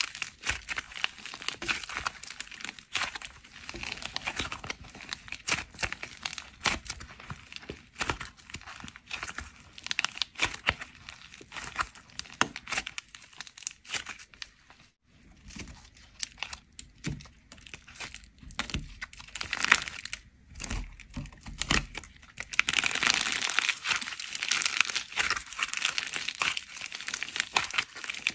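Dried plaster clay chips cracking and crunching as they are squeezed and kneaded by hand into soft slime, a dense run of small crackles and clicks. The crackling thins out around the middle and is densest and loudest over the last several seconds.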